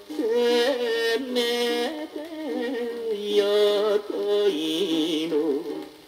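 Instrumental break of a late-1950s Japanese popular song playing from a vinyl record on a turntable: melody instruments with vibrato and no singing.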